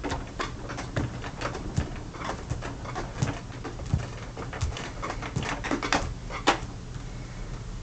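Irregular light clicks and knocks, a few a second, over a low steady hum.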